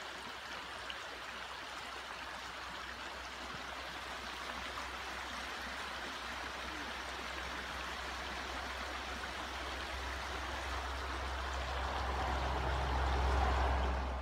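Small rocky mountain creek flowing, a steady rushing and trickling of water that grows a little louder near the end, with a low rumble coming up underneath in the last few seconds.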